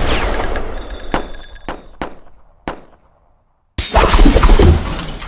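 Title-sequence sound effects: a burst of gunfire trails off into shattering, breaking noise with a few separate sharp cracks. After a short silence, a loud dense burst of rapid impacts starts about four seconds in.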